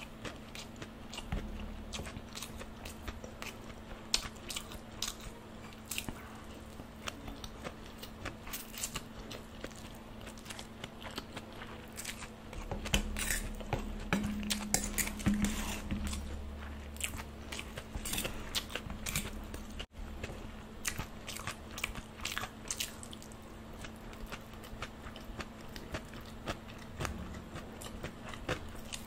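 Close-miked chewing of a mouthful of stir-fried chowmein noodles, with many small wet clicks. It grows louder for a few seconds around the middle, over a faint steady hum.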